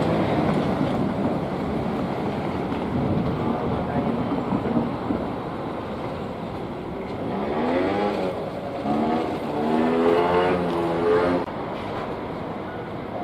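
Rushing noise of a train going past the level crossing fades over the first few seconds. Then a vehicle accelerates away, its engine note rising, in two pulls about eight and ten seconds in.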